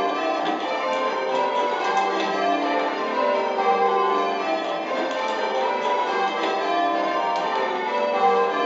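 Eight church bells ringing changes in spliced surprise major, struck one after another in a steady, rapid, unbroken rhythm with their tones overlapping. Heard from the ringing chamber beneath the bells.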